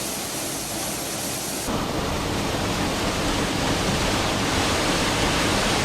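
Waterfall pouring down: a steady rush of falling water that becomes louder and deeper about two seconds in.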